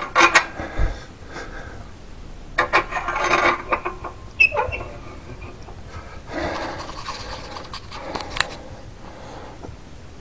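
Air-control knobs on a cast-iron stove door being turned by hand, metal scraping and creaking in several short bursts a second or two apart.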